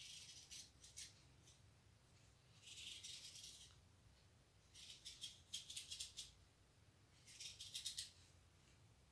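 Faint rustling and light clicking of a metal crochet hook working white yarn, in four short bursts about a second long each, as stitches are pulled through.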